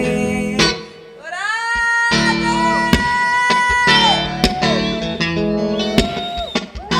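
Live music on acoustic guitar played percussively, with sharp knocks on the guitar body among the strummed chords. The music drops off briefly about a second in, then comes back with a note that slides up and is held.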